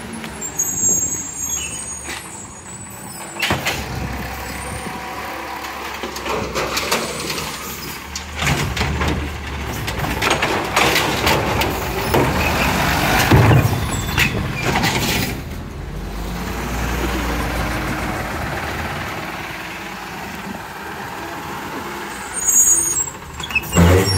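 Recycling garbage truck working at the curb: the engine runs under scattered knocks and clatter. The noise builds to its loudest in the middle, then drops off sharply about fifteen seconds in.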